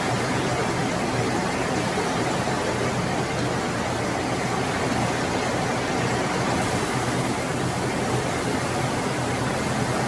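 Heavy rain falling steadily in a storm, an even hiss with no breaks or thunder.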